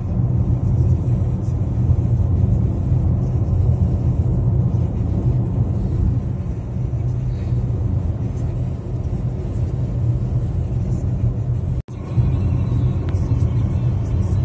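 Steady low rumble of a car driving at highway speed, engine and tyre-on-road noise heard from inside the cabin. The sound drops out for an instant a little before the end.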